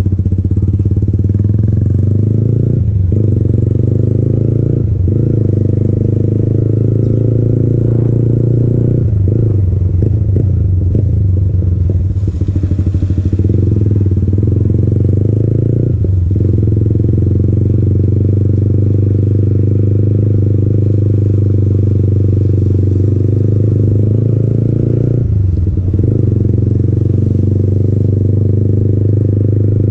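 Yamaha MT-15's 155 cc single-cylinder engine running through an aftermarket Akrapovic exhaust while riding, with a steady note that dips briefly about five times.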